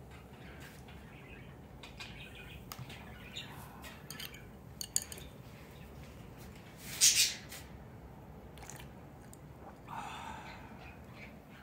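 Light clicks and knocks of chopsticks and a ceramic soup bowl being handled at a table, with one louder short scraping rush about seven seconds in.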